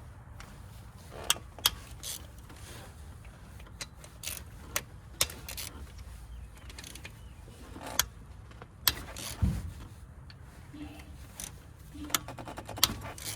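Metal hand tools clicking and clinking against engine parts while the fuel rail and injectors are taken off, in scattered sharp strikes with a quick run of clicks near the end.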